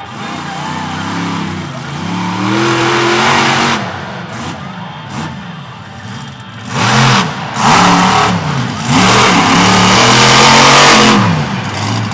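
Equalizer monster truck's engine revving hard in repeated surges, rising and falling in pitch, with a lull midway and the loudest bursts from about seven seconds in.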